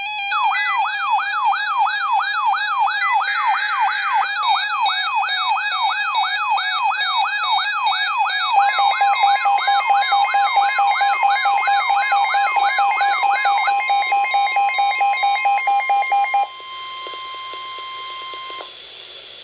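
Layered electronic alert sounds: a siren-like rising sweep repeating about three times a second, joined about eight seconds in by a fast beeping tone and a steady high tone. The sweeps stop around fourteen seconds in and the beeping a little later, leaving the steady tone alone until it cuts off.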